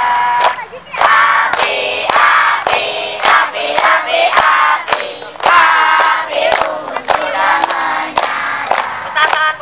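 A crowd of children singing a song together loudly in unison, with sharp claps keeping a steady beat about three times a second.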